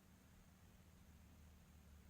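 Near silence: faint room tone, a low steady hum under a soft hiss.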